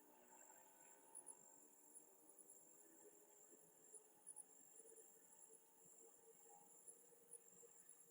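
Faint crickets chirping: a steady high trill with brief louder chirps now and then.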